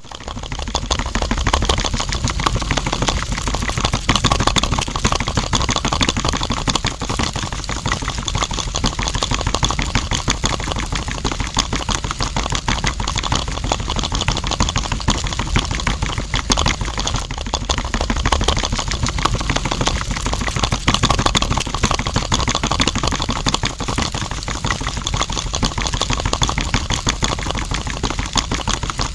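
Small electric motor turning the drum of a miniature homemade concrete mixer loaded with wet mix, running steadily with a fast, even rattle.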